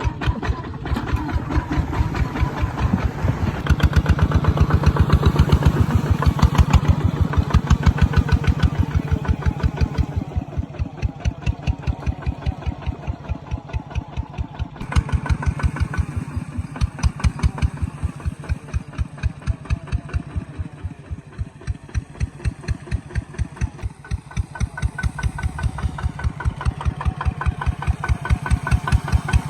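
Kubota ZT140 Plus single-cylinder diesel engine running with an even, rapid beat of firing strokes. Its level swells and eases a few times.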